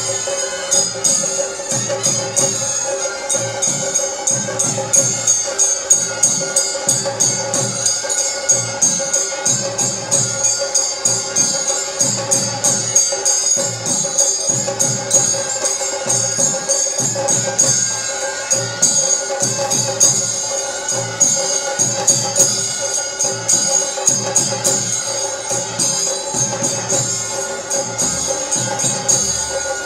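Live temple festival music from a procession band: a steady droning held note over a regular drum beat and quick jingling cymbal strikes.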